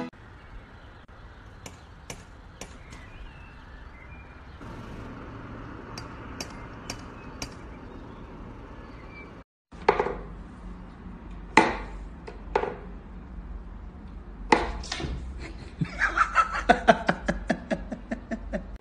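Wooden knocks and clacks from a cat whack-a-mole puzzle box as its pegs are pushed in and the cat paws at the holes, as single sharp knocks spaced about a second apart, then a quick clattering run near the end. Before that, faint ticks over a low hum.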